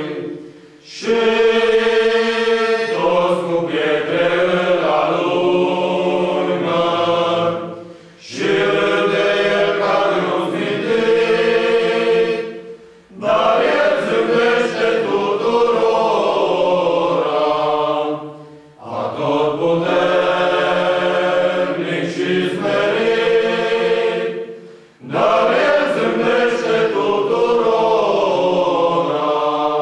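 Male choir of about eleven voices singing a cappella, in sung phrases of five or six seconds, each followed by a brief break for breath.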